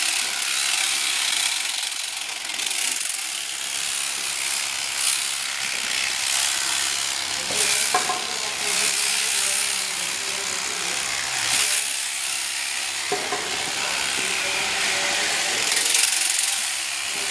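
Electric alpaca shearing handpiece, hung from an overhead motor, running while it clips fleece: a steady buzzing chatter of the cutter over the comb, swelling and easing with each stroke.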